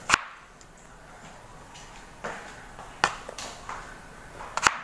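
Kitchen knife cutting squash on a cutting board: about five sharp knocks of the blade striking the board, irregularly spaced, two in quick succession near the end.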